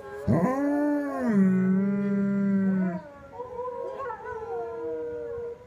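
German Shepherd howling: a sharply rising howl that settles into a long, held low note, then softer wavering howls after about three seconds.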